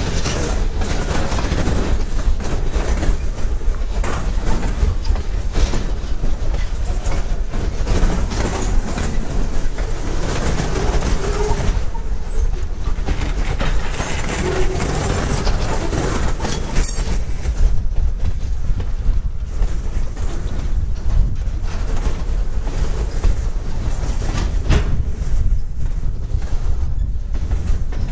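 Mixed freight train cars (boxcars, covered hoppers and centerbeam flatcars of lumber) rolling past at speed: a steady rumble of steel wheels on rail with a run of clicks as the wheels cross rail joints.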